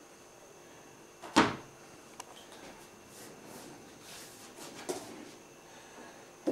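Handling noise of a sheet of embossed copper being pressed onto a pitch-filled box: one sharp knock about a second and a half in, then softer scuffs and knocks. Low electrical hum runs underneath.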